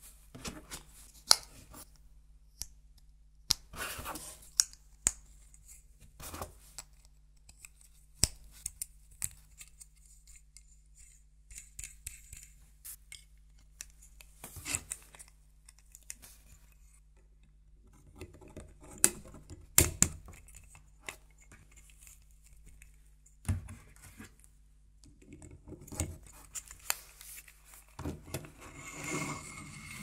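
Plastic LEGO Technic parts (axles, bushings and wheels) being handled and pushed together: a scatter of sharp clicks and snaps, with short spells of plastic rubbing and scraping.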